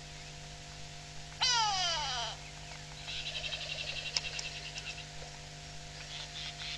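Grey go-away bird giving one loud, nasal alarm call that falls in pitch, in distress at a hawk eagle nearby; a rapid, high-pitched bird chatter follows about a second later.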